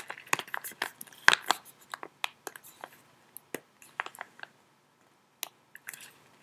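Foil tea pouch crinkling as it is handled and folded: a dense run of sharp crackles for the first few seconds, thinning to a few isolated crinkles, with a brief quiet gap near the end.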